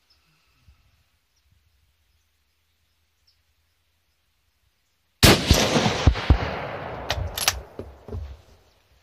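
A single .22-250 rifle shot about five seconds in: a sharp crack followed by an echo that rolls away over about three seconds, with two sharp clicks as it fades.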